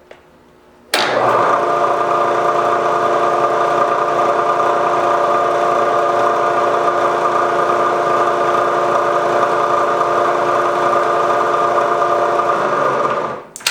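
Milling machine spindle running a small spot drill into a steel rifle bolt for the extractor pivot hole. It starts suddenly about a second in, runs as a steady hum with a few steady tones, and winds down just before the end.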